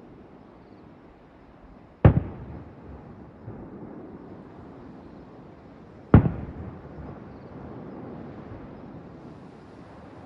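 Aerial firework shells bursting: two loud bangs about four seconds apart, each trailing off in an echo.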